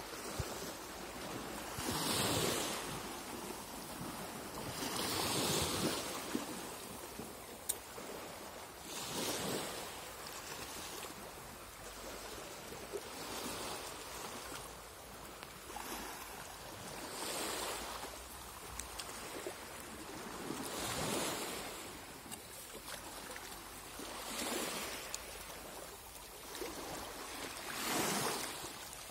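Small sea waves lapping and breaking on a sandy, pebbly shore, each wash swelling and fading about every three to four seconds over a steady hiss.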